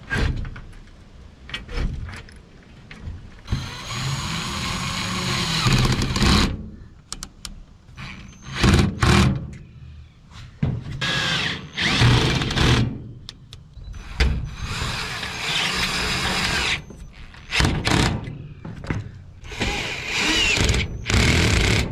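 Cordless power driver with a socket bit tightening the bolts of aluminium solar-panel clamps onto the mounting rails. It runs in several bursts of one to three seconds each, with short knocks and clicks between them.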